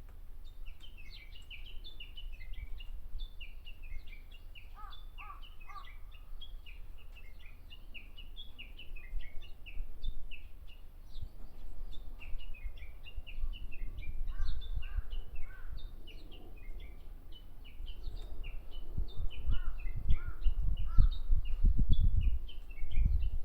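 Japanese bush warbler singing: a steady stream of short, high chirping notes, with a few lower, quick phrases about 5, 14 and 20 seconds in. A low rumble builds and grows loud over the last few seconds.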